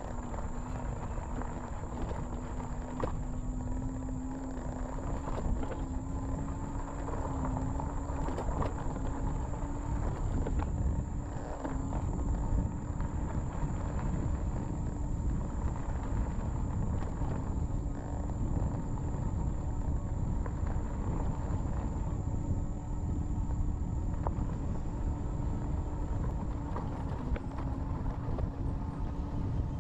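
Fat-tire electric bike riding over a rough dirt and sand trail: a steady low rumble of tyres and wind, with scattered knocks and rattles from bumps. Under it a steady electric-motor hum rises slightly in pitch over the first ten seconds, then holds.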